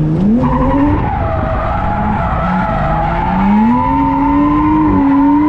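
Drift car's engine revving hard, with tyres skidding as the car slides. The revs climb right at the start and again around the middle, then hold high to the end.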